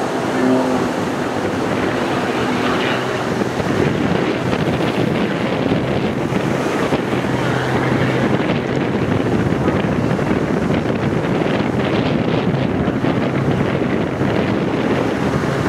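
Strong wind buffeting the microphone, with the faint, steady drone of an Extra 300 aerobatic plane's propeller engine underneath.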